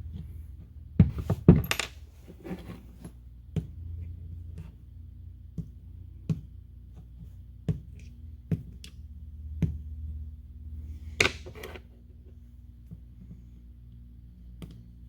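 Metal parts of a pneumatic impact wrench's air motor being handled and worked apart by hand: scattered light metallic clicks and taps, the sharpest a little after one second and again at about eleven seconds, over a steady low hum.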